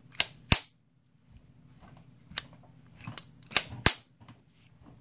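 Luger P.08 pistol's steel parts clicking and snapping into place as the pistol is reassembled after a field strip: a series of about six sharp metal clicks, the loudest about half a second in and near the end.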